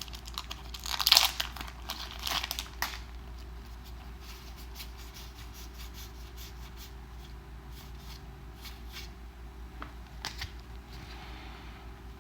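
Foil wrapper of a Magic: The Gathering Kaladesh booster pack being torn open and crinkled for about three seconds, loudest about a second in. After that come only faint scattered ticks of cards being handled.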